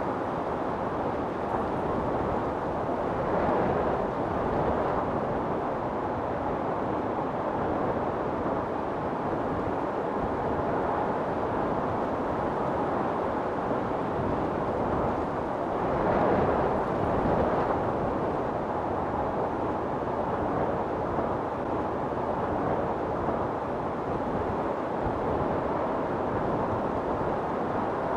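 Wind storm blowing steadily, with gusts swelling about three seconds in and again around sixteen seconds.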